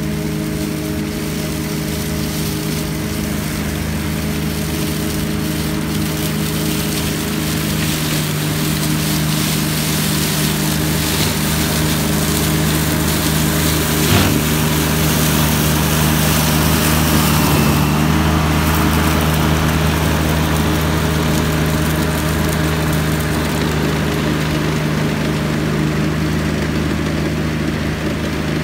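McConnel Robocut remote-controlled tracked flail mower running steadily, its engine and spinning flail head cutting through dead bracken and brambles. It grows louder as the machine passes close about halfway through, with a single knock near the middle, then eases as it moves away.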